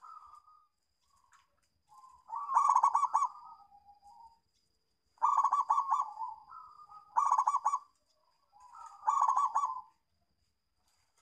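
Zebra dove (perkutut) cooing: four loud phrases about two seconds apart, each a quick stuttering run of coos, with softer single coos between them.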